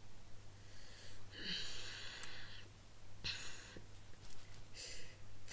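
A person's faint breaths through the nose, a few short exhales like a stifled laugh.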